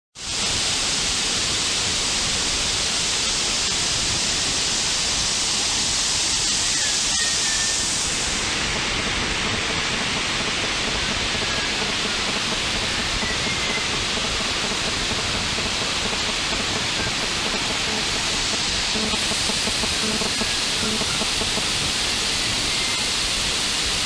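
Monsoon-swollen waterfall crashing onto rocks, a loud, steady rush of falling water with no break in its level.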